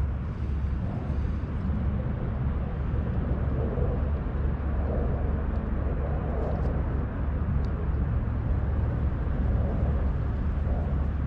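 Wind buffeting the microphone outdoors: a steady low rumble, with a few faint clicks.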